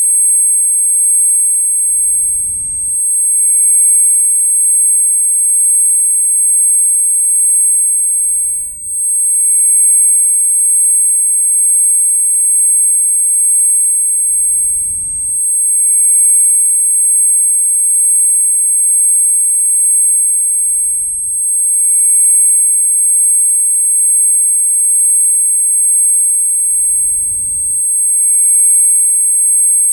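Synthesized ear-ringing (tinnitus) sound effect: steady, piercing high-pitched tones held without change, with a faint brief blip and dip in level about every six seconds.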